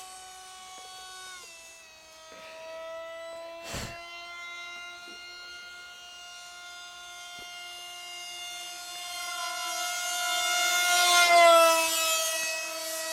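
Motor of a radio-controlled model MiG plane whining in flight, its pitch stepping down a little about one and a half seconds in. It grows much louder as the plane passes close about ten to twelve seconds in, the pitch falling as it goes by. A single short knock is heard about four seconds in.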